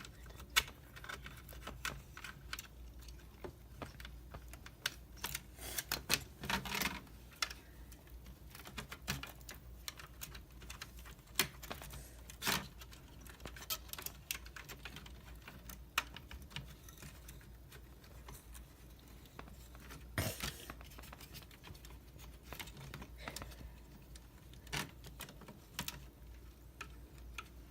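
Irregular small clicks and taps of laptop parts being handled and fitted together by hand during reassembly, over a faint low hum.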